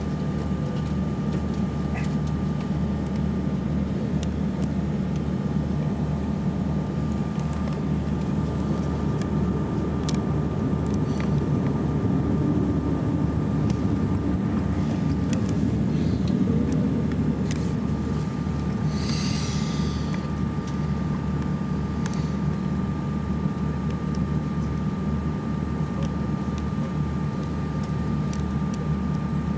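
Steady cabin hum inside an Airbus A330-200 waiting at the gate: a low drone with a thin, steady high whine over it. A short hiss comes about nineteen seconds in.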